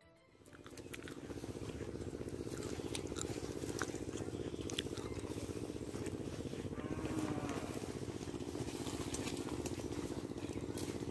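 A small engine running steadily, a rapid, even chugging that fades in at the start, with a few sharp clicks over it.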